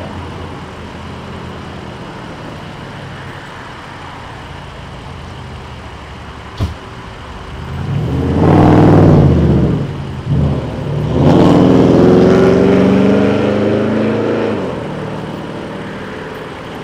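Vehicle engines running steadily in a low hum, with one sharp click. About eight seconds in, loud engine noise swells for about two seconds, dips briefly, then swells again for about three seconds with a slowly falling pitch before fading.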